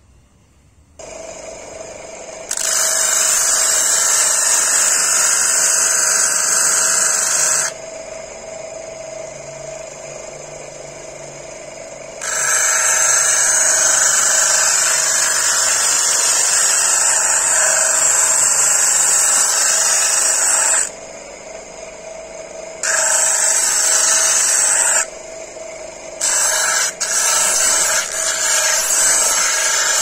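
Electric bench grinder with stacked abrasive wheels starting and running with a steady hum, while a handle blank is pressed against a wheel to shape it: a loud grinding hiss in long passes, then several shorter passes near the end, dropping back to the motor's hum between passes.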